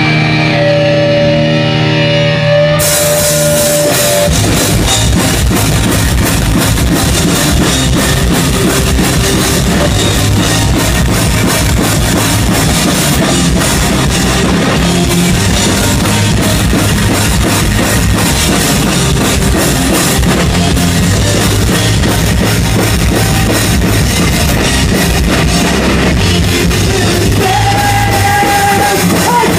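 Punk rock band playing live at full volume: a few held notes ring out alone at first, then the drums and the rest of the band come in about three seconds in and play on steadily.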